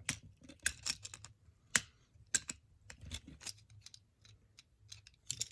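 Hard plastic parts of a Transformers Mixmaster action figure clicking and knocking as they are handled and pushed together, a string of irregular sharp clicks, the loudest a little under two seconds in.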